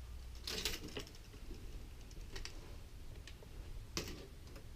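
Tape measure being handled while measuring a model vehicle: a short scrape about half a second in, then a few light clicks.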